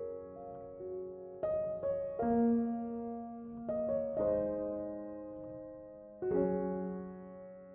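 Background music: soft, slow piano, chords struck every second or two and left to ring and fade.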